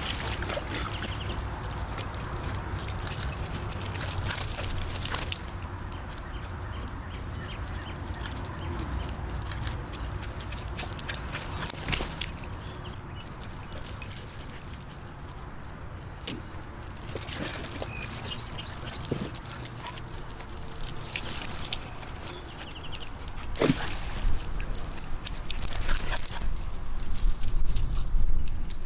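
Soft-coated wheaten terriers' collar tags jingling in scattered metallic clicks as the dogs move about, over a steady low rumble that grows louder near the end.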